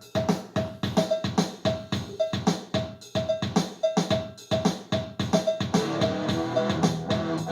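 Music track opening on a steady drum beat, with a short ringing tone on each hit. About six seconds in, more pitched instruments such as bass join the beat.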